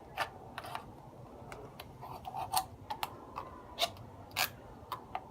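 Fingernail picking at the punched hole in the side of an aluminium soda can to make it bigger: a string of irregular sharp clicks, about a dozen.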